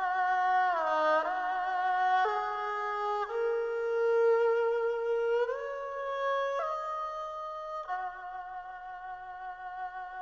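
Background music: a slow melody of long held notes on a flute- or fiddle-like instrument, sliding between pitches with vibrato.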